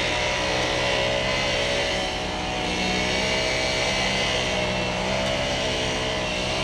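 Large truck diesel engine of the concrete-pouring machinery running steadily at constant speed, with a slight dip in speed about two seconds in.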